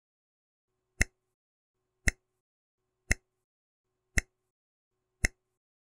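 Countdown-timer tick sound effect: five sharp, evenly spaced ticks, about one a second.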